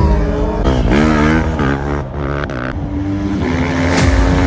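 Superbike engines revving hard on a race track, the pitch dropping and climbing again several times as the bikes shift gears, then holding steady near the end.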